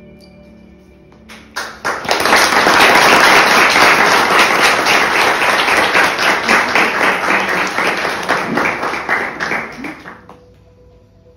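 Audience applauding: dense clapping starts about one and a half seconds in, holds strongly, then thins out and dies away near the end.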